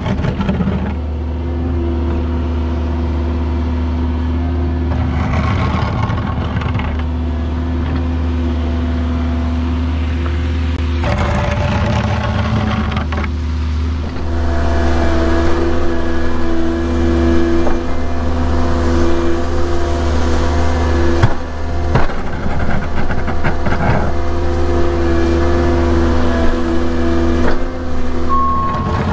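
Diesel engine running steadily with a low hum, getting louder about fourteen seconds in.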